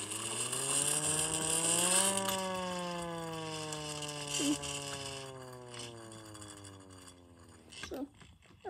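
Small hand-crank air raid siren wailing. It is cranked up for about two seconds with its pitch rising, then left to coast, the wail sliding slowly lower and fading as the rotor spins down.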